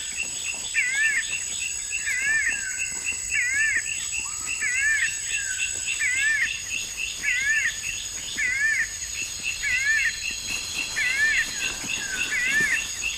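Forest ambience: a bird repeats a short rising-and-falling call about once a second, over rapid insect chirping and a steady high insect whine.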